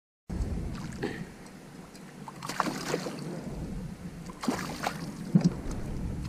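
Kayak and fishing-gear handling sounds: a few short clatters and knocks, the loudest near the end, over light water and wind noise. The sound cuts out completely for a moment at the start.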